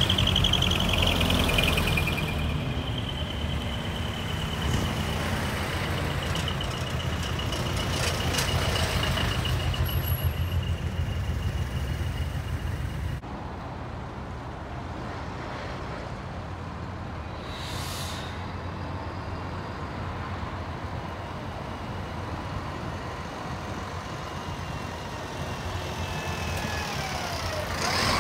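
Diesel engines of decorated trucks driving slowly past in a convoy, with a steady high whine through the first half and short air-brake hisses. Near the end a large box truck passes close by, its engine sound falling in pitch as it goes past.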